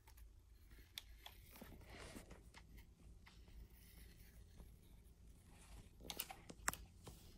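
Faint scratching of a pencil drawing on the plastic shell of an Xbox controller, with a few sharp clicks about six seconds in.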